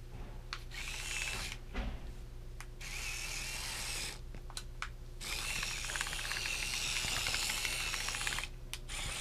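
Small electric drive motors and plastic gears of a WowWee Miposaur RC Mini robot dinosaur whirring as it is driven by remote, spinning and driving forward. The whirring comes in three spells with short pauses between them.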